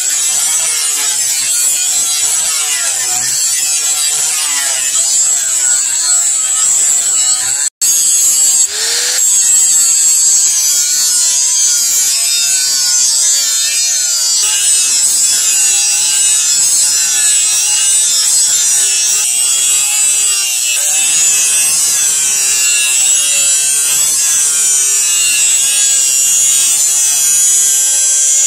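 Electric angle grinder running against the steel blade of a knife, grinding it with a steady high whine and a wavering grinding pitch. The sound drops out for an instant about eight seconds in.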